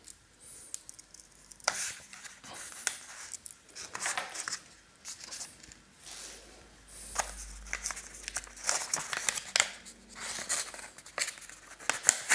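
Rustling, crinkling and tearing of a small accessory packet's wrapping being opened by hand, in short irregular crackles with brief pauses.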